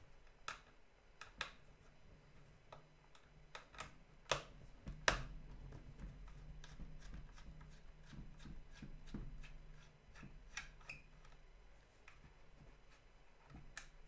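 Small screwdriver taking screws out of a plastic drone body, with scattered light clicks and handling noises of small plastic parts; the sharpest clicks come about four and five seconds in. A faint low hum runs underneath from about five seconds on.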